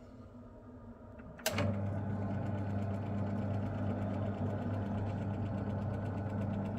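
A boiler's electric motor switches on with a click about a second and a half in, then runs with a steady low hum.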